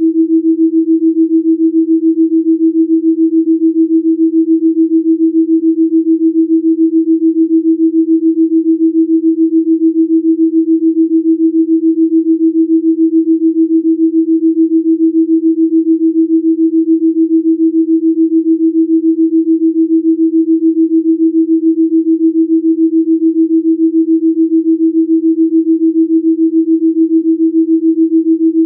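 A pure sine tone held at one fixed low-mid pitch, pulsing evenly in loudness. It is a delta binaural-beat 'Rife frequency' tone.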